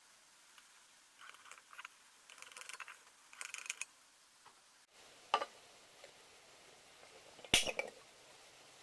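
A tin can handled on a wooden tabletop: faint clusters of small ticks in the first few seconds, then two sharp knocks, the second, near the end, the loudest.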